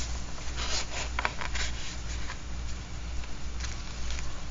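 Paper pages of a handmade art journal rustling as they are turned and handled, with a few brief rustles about a second in and again near the end.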